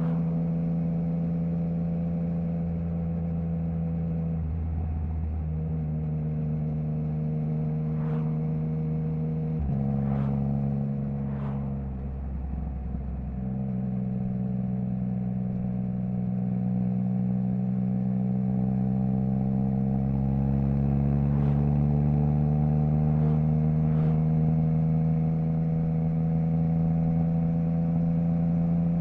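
Triumph Trident 660's inline three-cylinder engine through a Zard stainless full exhaust with the baffle removed, cruising at low, fairly steady revs. There are a few brief dips and pitch steps in the first half as the bike changes gear or eases off, then a slow, steady climb in revs. A few faint short cracks sound over it.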